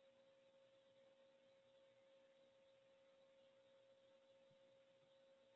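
Near silence: a faint steady tone over a low hiss, with no other change.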